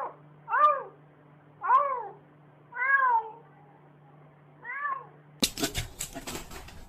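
A cat meowing five times, about a second apart, each meow rising then falling in pitch. After the last meow, about five and a half seconds in, a noisy stretch of clicks and rustling begins.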